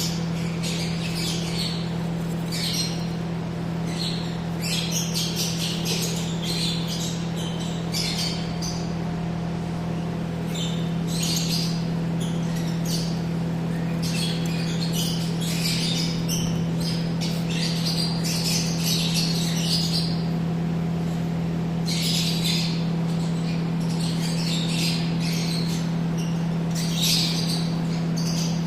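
Yellow-collared lovebirds chattering and squawking in short bursts, coming again every second or two, over a steady low hum.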